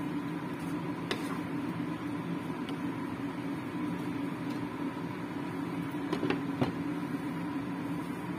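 Steady hum of a kitchen appliance running beside the cooktop, with a few light clicks of a wooden spatula against a non-stick wok as curry is stirred, and two sharper knocks a little past halfway.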